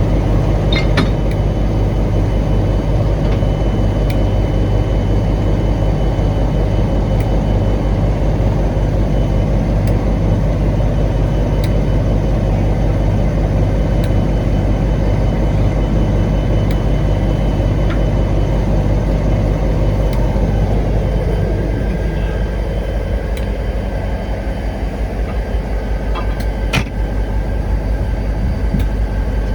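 Diesel locomotive engine idling, a loud, steady low throb with a fast even beat. About two-thirds of the way through, a tone slides down in pitch and the engine note eases slightly; a sharp click comes near the end.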